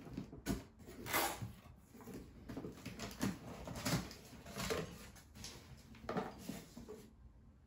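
Cardboard box being handled and opened: irregular rustling and scraping of cardboard flaps with light knocks, stopping about a second before the end.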